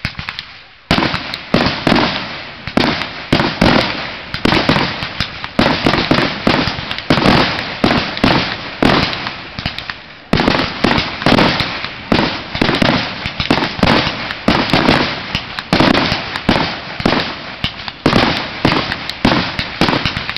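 Fireworks display: a rapid, continuous barrage of aerial bursts, several bangs a second, starting about a second in with a brief lull near the middle.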